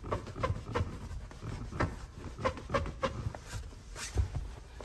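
Kia Rio X front seat side bolster being pressed and worked by hand, its foam squeaking and creaking against the bare metal seat frame in a string of short, irregular creaks. The squeak comes from the thin pad between the foam and the metal frame having been left out of the seat.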